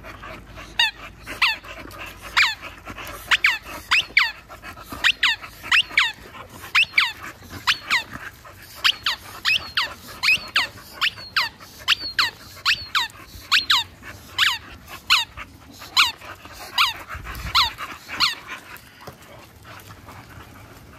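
A dog's squeaky ball squeaking over and over as the dog chews it, about two short squeaks a second, each sliding down in pitch; the squeaking stops a few seconds before the end.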